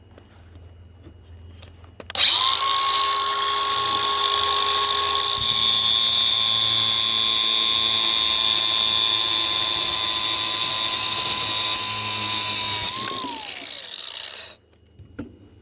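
A handheld power tool motor starts with a steady high whine. About five seconds in a harsher grinding hiss joins it as it works into the metal of a Master Lock, lasting about seven seconds. The motor then winds down, its whine falling in pitch, and stops, followed by a single click.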